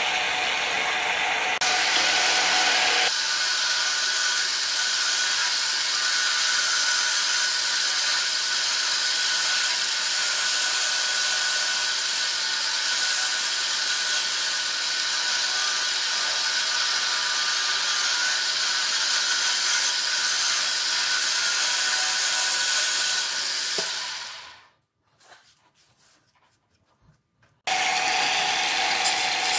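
Wood lathe spinning a wooden hammer-handle blank while a turning chisel cuts it, a steady scraping hiss over the machine's hum. It fades out a little over three-quarters of the way through and starts again abruptly about three seconds later.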